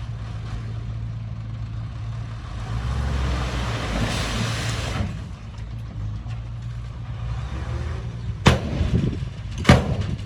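Heavy diesel earthmoving machinery running steadily, with a hiss swelling and fading around the middle and two sharp bangs near the end, about a second apart.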